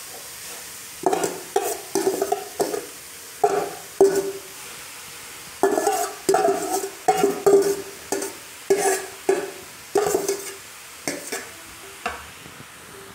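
Metal spatula scraping and knocking against a stainless-steel bowl in clusters of quick taps, each ringing briefly, as grated beetroot is emptied into a frying pan. A soft steady sizzle of the beetroot in hot ghee runs underneath.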